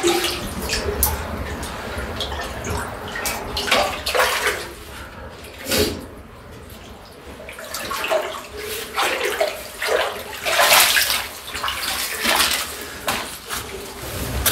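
Water splashing and sloshing in irregular bursts as a person wades and works with his hands in knee-deep cave water.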